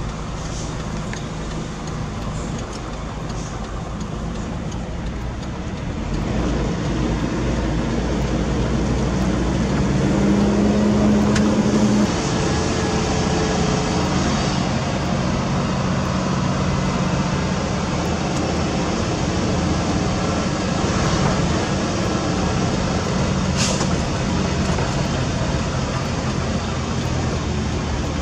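Heavy diesel engine running steadily. It grows louder about six seconds in and holds a stronger, steadier tone for a couple of seconds around ten to twelve seconds in. A brief hiss comes near the end.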